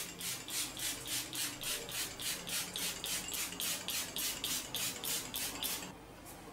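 Rapid, even rasping strokes, about five a second, of spice being ground fresh over a bowl of marinating salmon steaks; they stop about six seconds in.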